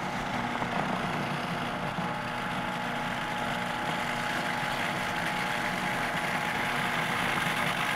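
Food processor motor running steadily, blending arugula pesto while olive oil is poured in through the feed tube.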